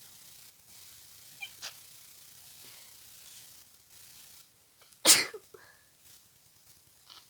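A person with a congested head cold sneezing once, loud and sudden, about five seconds in. Two short, fainter sounds come about a second and a half in.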